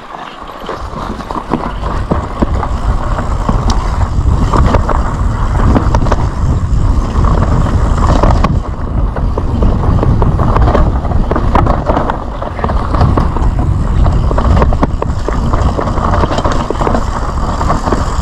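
Mountain bike running fast down a dry dirt trail: wind rumbling over the action camera's microphone, tyres crunching over dirt and stones, and the bike's chain and frame rattling with many sharp clicks. It grows louder over the first couple of seconds as speed builds, then stays steady.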